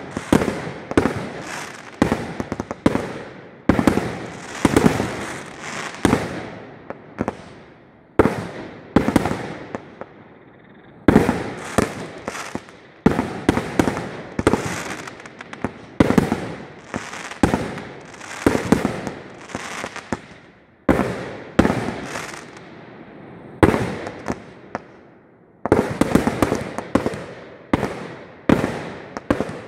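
Fireworks display: aerial firework shells bursting in rapid succession, sharp bangs about one to two a second, each trailing off briefly, with a few short lulls.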